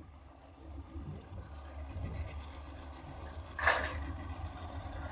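Outboard motor on a small runabout boat running at low throttle as the boat moves off from the dock, a steady low hum. A brief loud burst of noise about three and a half seconds in.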